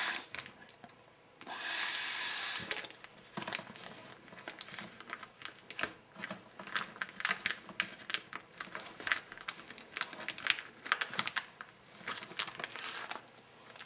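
Air sucked out of a plastic zip-top freezer bag through a straw: a steady hiss lasting about a second near the start. Then the bag's thin plastic crinkles and crackles in quick, irregular snaps as it is handled and its zip seal is pressed shut.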